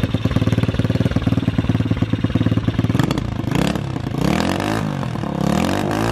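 Loncin pit bike's small four-stroke single-cylinder engine, just brought to life after a long lay-up in freezing weather, idling with a fast, even beat. From about three and a half seconds in it is blipped up and let back down three times.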